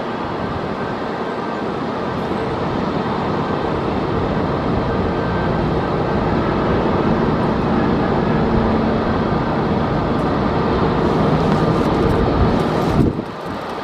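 Heavy rain and gusting wind mixed with the steady rumble of airliner jet engines, slowly building in level; the sound drops off sharply about a second before the end.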